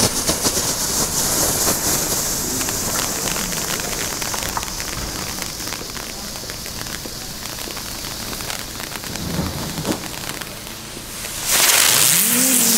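A small Lesli Transformers firework burning on the ground: a fountain hissing with dense fine crackling that slowly fades. About eleven seconds in it flares into a much louder rushing hiss, with a whirr that rises and then falls in pitch, as it turns into its ground-spinner stage.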